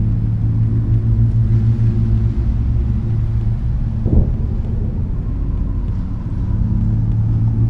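A deep, steady rumble, like a ship's engine on a stormy sea, with a single sharp thunderclap about four seconds in.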